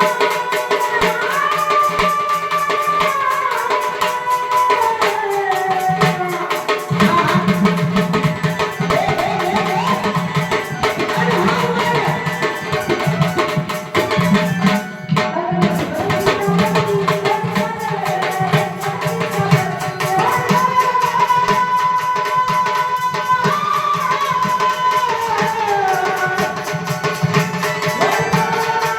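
Marathi devotional folk music: a melody of long held, sliding notes with percussion, a drum beat coming in about seven seconds in and running on under the melody.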